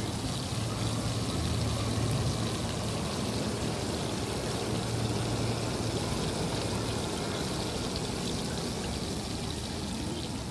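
Hot oil sizzling and bubbling steadily in a camping pot as food deep-fries on a portable butane gas stove, with a steady low hum underneath.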